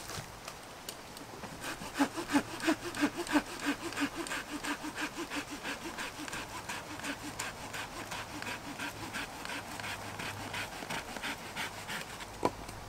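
Hand saw cutting through a dead branch: quick, even back-and-forth strokes, about four a second, that stop near the end, followed by a single knock.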